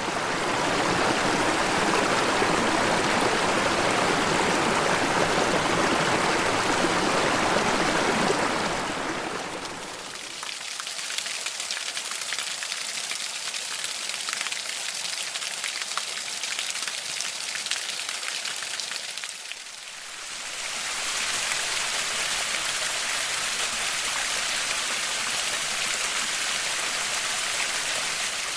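Running water of rainforest creeks and waterfalls, heard as three recordings that fade into each other about ten and twenty seconds in: a full rushing stream first, then a thinner, quieter splashing with little low rumble, then a steady hiss of falling water.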